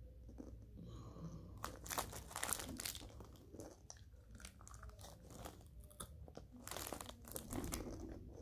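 Reese's Pieces candies being crunched and chewed in the mouth, irregular crunches setting in about a second and a half in, with some crinkling of the plastic candy wrapper.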